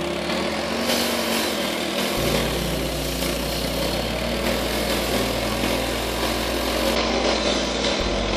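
Petrol walk-behind road saw running steadily as it cuts asphalt: a small engine's drone with the blade's noisy hiss over it.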